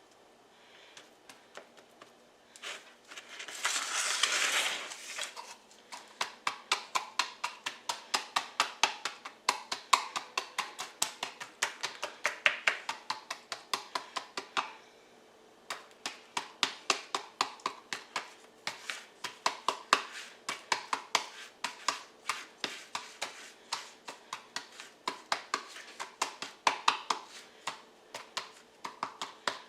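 Rapid, evenly spaced tapping, about four or five taps a second, of a measuring cup pressing a buttered crumb crust down into a pie pan, with a short pause partway through. A brief rustling hiss comes about three seconds in.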